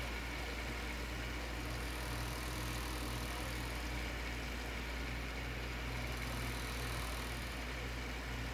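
Steady low hum with an even hiss from a running desktop PC with a liquid-cooling radiator, unchanging throughout.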